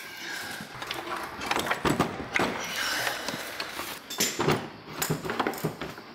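Irregular metal clunks and knocks as a rebuilt ATV engine is worked into its frame, the engine catching against a mount.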